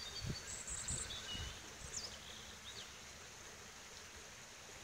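Birds of a morning chorus singing: several short, high chirps and trills in the first two seconds, then fading to a faint background, over a few soft low thuds near the start.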